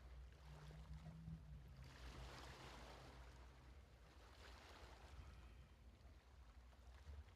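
Faint ocean waves washing in, swelling to a soft surge and ebbing away, over a low steady hum.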